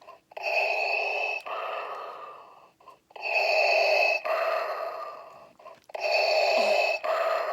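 Darth Vader's respirator breathing played through the tiny speaker of a handheld Star Wars sound toy: a tinny, hissing in-and-out cycle repeating about every three seconds, three times.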